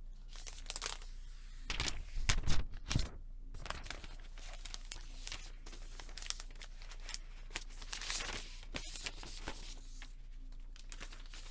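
Protective wrapping on a new MacBook Air being torn and crinkled as it is unwrapped. The loudest tearing and rustling comes in a burst about two seconds in, with softer rustling later.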